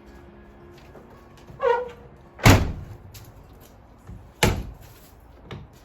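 A short squeal followed by two heavy slams about two seconds apart, then a lighter knock near the end.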